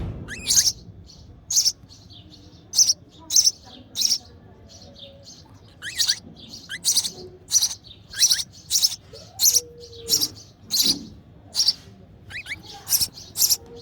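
Nestling sparrows in the nest giving hungry begging chirps for their mother: short, high, sharp chirps repeated in quick runs of about two a second, with a brief pause about five seconds in.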